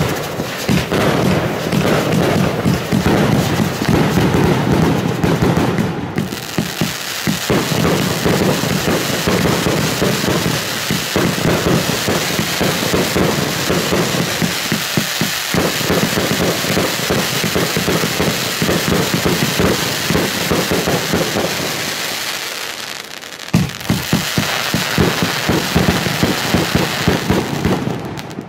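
Funke Fireball 200-shot compound fireworks cake firing, a dense, continuous rapid crackling of cracker effects with shots going off. About 23 seconds in it dips briefly, then a sharp bang starts a fresh run of crackling.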